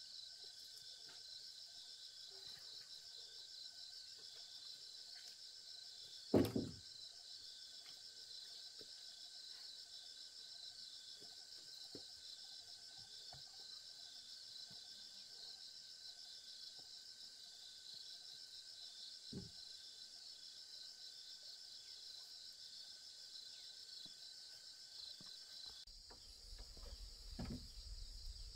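Insects trilling steadily with a fast pulsing rhythm. About six seconds in, a single loud knock of a wooden pole being set down; a softer knock follows later, and a low rumble and a few small knocks come near the end.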